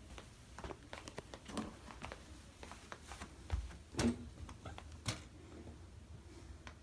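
Light handling noise: scattered small clicks and knocks, with a dull thump about three and a half seconds in and two sharper knocks soon after.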